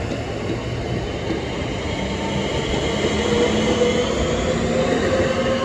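Southeastern Class 465 Networker electric multiple unit moving past at close range: steady rumble of wheels on rail. Over the last few seconds a faint whine rises slightly in pitch.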